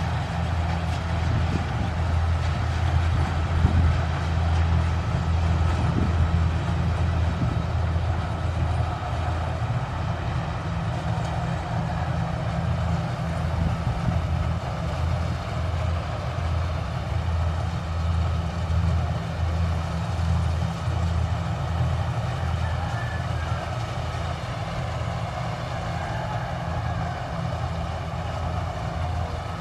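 Kubota rice combine harvester running steadily: a low, slightly pulsing diesel-engine drone with the even rush of the machine's working parts above it.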